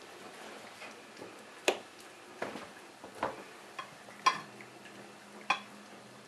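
Puppies eating dry kibble from stainless steel bowls: irregular sharp clinks of kibble and teeth against the metal, about six in all, a few ringing briefly.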